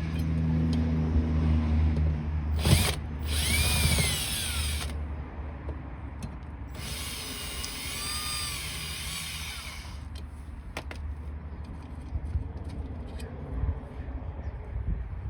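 Cordless power drill-driver run in two bursts of a few seconds each, its whine rising then falling each time the trigger is squeezed and let go.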